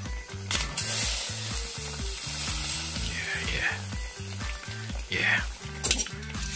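Juices sizzling and bubbling inside turban shells grilling over charcoal. The sizzle comes in strongly about a second in and eases off near the end, over a steady beat of background music.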